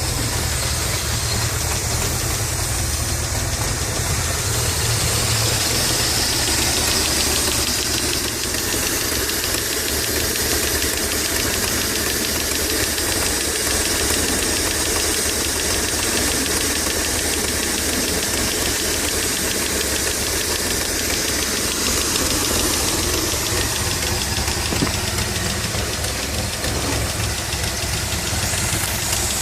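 Dodge Stealth twin turbo's 3.0-litre V6 idling steadily with a fast, even ticking from the top of the engine, which the owner takes for a lifter tick but is not sure of.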